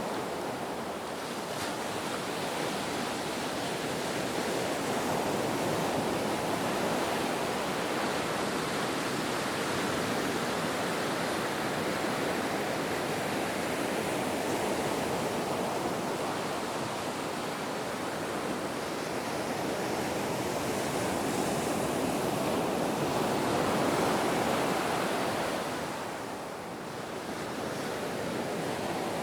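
Ocean surf: a continuous wash of breaking waves that swells and eases slowly, dipping briefly near the end before building again.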